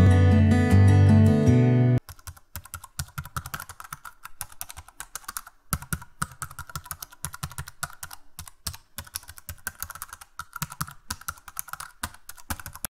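Strummed acoustic guitar music that cuts off suddenly about two seconds in, followed by rapid, irregular computer-keyboard typing clicks as a typing sound effect. The clicks stop abruptly at the very end.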